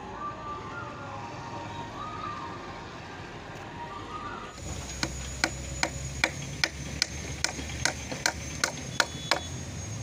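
Hand hammer striking a wooden plank that is being fastened to a bamboo pole: a run of about a dozen sharp knocks, two to three a second, starting about halfway in.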